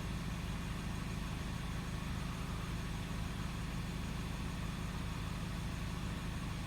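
2019 Toyota Camry's engine idling steadily, a low even hum heard from inside the cabin.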